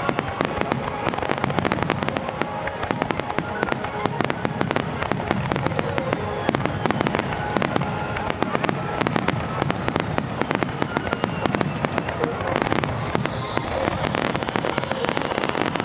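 Fireworks finale barrage: many aerial shells bursting in quick succession, with dense bangs and crackle many times a second and no let-up.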